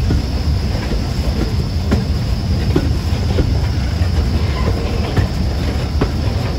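BR Standard Class 5 steam locomotive Camelot running along the line, heard from on board: a steady, heavy rumble with scattered clicks of the wheels over the rail joints.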